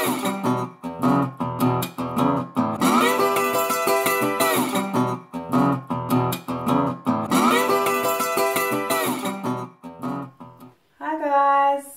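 Background music: guitar picking and strumming, which stops near the end.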